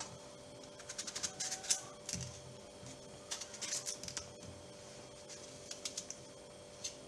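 Kitchen knife cutting a yellow Kerala cucumber on a cutting board: scattered clicks and taps in a few short clusters as the blade goes through the flesh and meets the board, over a faint steady hum.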